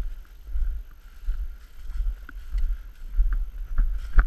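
Footsteps of a person walking through dry field grass, a low thump about every two-thirds of a second, with wind rumbling on the body-worn camera's microphone.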